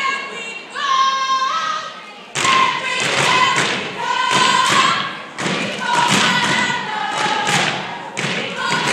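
Step team performing: a group of voices chanting and singing held calls together, joined about two seconds in by unison stomps and claps at about two beats a second.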